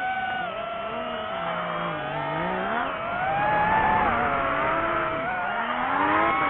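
Motor of a radio-controlled drift car whining, its pitch rising and falling over and over with the throttle.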